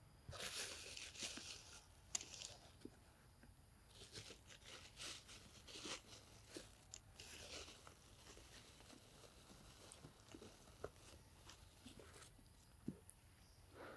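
A macaque chewing and crunching food: irregular runs of crisp crackling crunches with sharp clicks between them, busiest in the first half and thinning to scattered clicks later.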